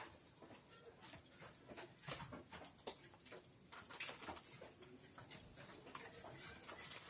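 Faint, scattered soft clicks and rustles of a dog and a kitten at play: the dog mouthing and nuzzling the kitten as it paws back on a cloth sack.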